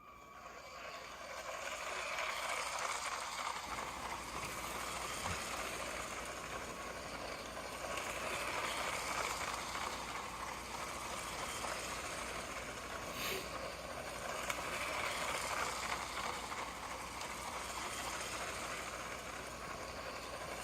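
Motorized LEGO City 60197 passenger train running at its slowest speed setting on plastic LEGO track: a steady electric motor whir with wheel and track rattle, rising and falling in level every several seconds as it circles the loop.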